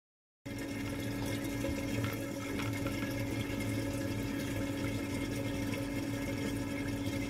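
Silent at first, then about half a second in a reef aquarium's water circulation starts up: steady splashing and bubbling of water from the filter and pump, with a low steady hum under it.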